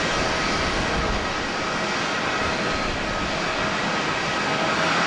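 Jet engines of a Boeing 747-8, its four GEnx turbofans running in a steady rush with thin high whine tones over it.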